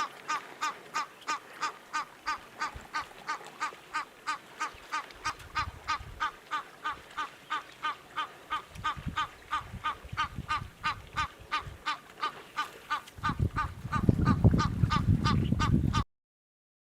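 A bird calling in a fast, even series of short calls, about three a second, with a low rumble rising under it and loudest near the end; it all cuts off suddenly about sixteen seconds in.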